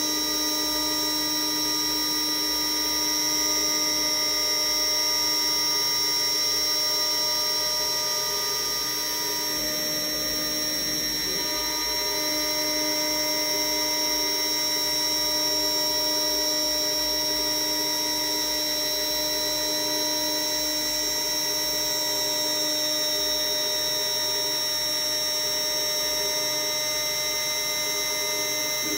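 CNC router spindle running at speed with a steady whine, its 0.5 mm conical engraving bit cutting fine V-carved lines into birch plywood.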